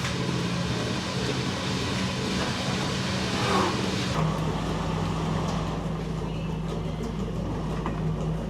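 Machinery running with a steady low hum; the background changes abruptly about four seconds in.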